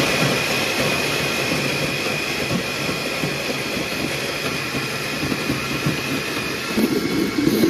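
Hamilton Beach countertop blender running, blending chopped coconut with water into coconut milk. It is a steady motor noise with a high whine on top, and it gets louder and heavier near the end.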